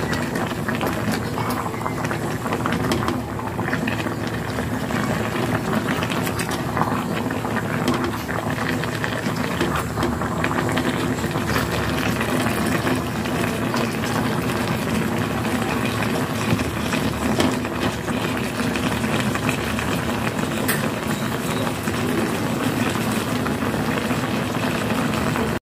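Chopped jackfruit cooking in a pot, bubbling steadily, with a wooden spatula scraping and knocking as it is stirred, over a low steady hum. The sound cuts off suddenly near the end.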